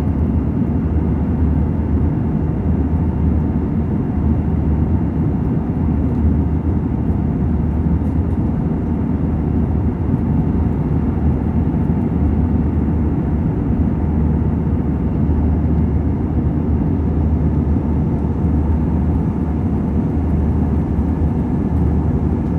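Steady low rumble of airliner cabin noise, engine and airflow droning without a break.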